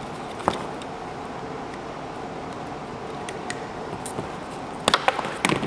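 A tube of black silicone sealant is handled, uncapped and its plastic nozzle cut. There is a sharp click about half a second in, a few faint ticks, and a quick cluster of sharp clicks and snips near the end, over a steady background hum.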